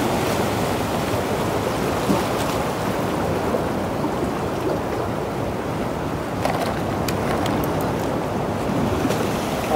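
Sea surf washing against coastal rocks, a steady rush of water. A few light clicks come about two-thirds of the way through.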